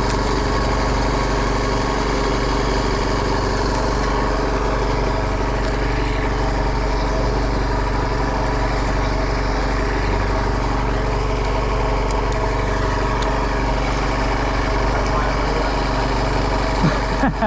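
A fishing boat's engine running steadily at an even speed, a constant drone.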